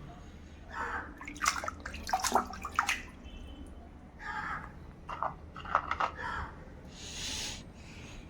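Water splashing and dripping in short, irregular bursts as toys are washed in water, with a brief hiss about seven seconds in.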